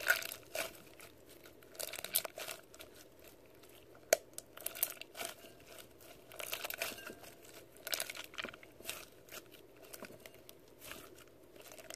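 Homemade slime mixed with clear floral beads and Orbeez being squeezed and kneaded by hand, giving irregular crunching and crackling clicks with short quiet gaps between.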